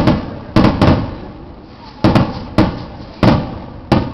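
Fireworks bursting overhead: about seven loud, sharp bangs at uneven intervals, each dying away in a rolling echo.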